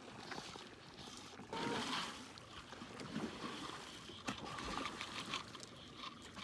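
Water lapping and sloshing against a small boat's hull, with a louder rush of water about a second and a half in.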